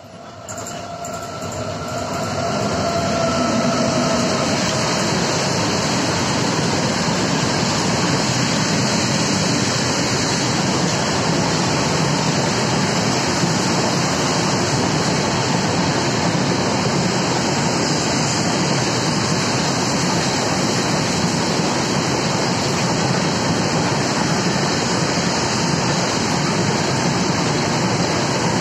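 Freight train of covered goods wagons rolling past on the rails: a steady, dense rumble and rattle of wheels and wagon bodies. It swells over the first two or three seconds as the train draws level, then holds even.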